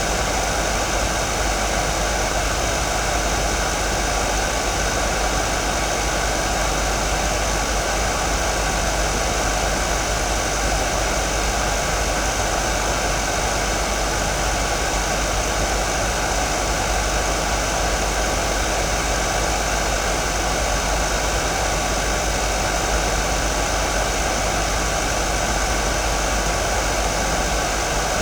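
Hair dryer running steadily: an even rush of blown air with faint steady tones in it and a low hum underneath.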